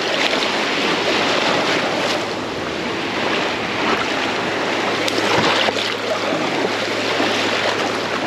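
Shallow seawater sloshing and splashing as a person wades and sweeps a crab dip net through it, with wind rushing on the microphone. A few louder surges of water stand out.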